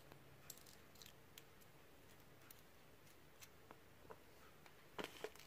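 Faint scattered ticks and clicks of a small metal female RCA connector being handled, its knurled barrel screwed on by hand, with two sharper clicks close together near the end.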